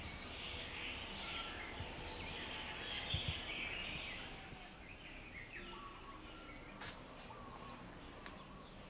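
Faint outdoor ambience with birds calling, in short whistled notes and chattering phrases, and two sharp clicks in the second half.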